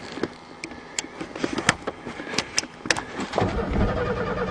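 A scatter of sharp clicks, then about three seconds in the starter of a cold Ford Thunderbird begins cranking the engine, which does not fire. The owner suspects the fuel pump, which he can't hear running.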